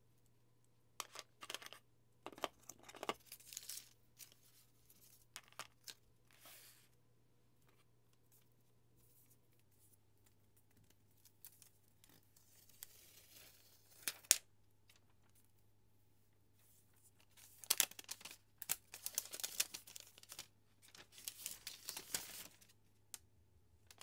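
Paper packaging being handled and torn: the iPad Air's paper protective wrap is peeled off, with bursts of crinkling and tearing. There is a sharp click near the middle, and the rustling is densest in the last third.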